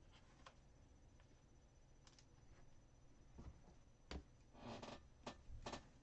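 Faint handling of trading cards: a few small clicks and short rustles in the second half, otherwise near silence.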